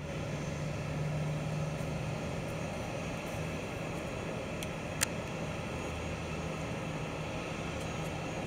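Airbus A320-family airliner's jet engines running at idle while it taxis, a steady hum over a noisy hiss. A single sharp click about five seconds in.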